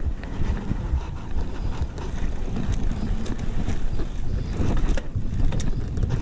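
Mountain bike rolling over concrete, heard as a low tyre rumble mixed with wind buffeting the action camera's microphone, with a few light knocks near the end.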